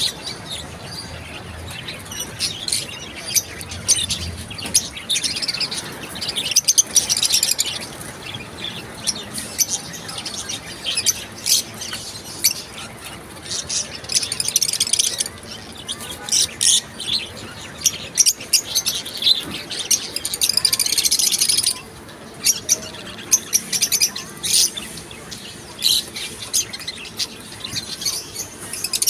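A flock of small caged birds chirping at once: quick, high chirps overlapping in a continuous chatter that swells and eases throughout.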